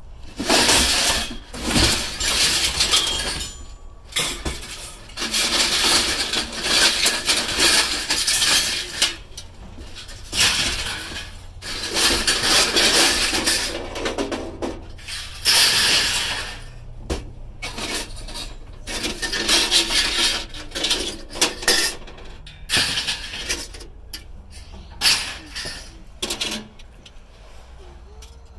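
Scrap being handled and sorted: repeated scraping, rubbing and clattering of hard objects, in irregular bursts with short pauses.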